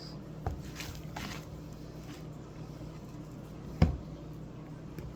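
Homemade baking-soda-and-glue slime squishing as it is kneaded by hand, a few short wet squishes, with one sharp knock just under four seconds in.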